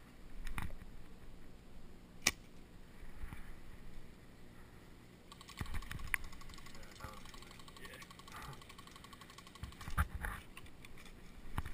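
Scattered sharp clicks and knocks of airsoft guns and gear being handled, with rustling of clothing in the middle. One loud sharp click about two seconds in stands out above the rest.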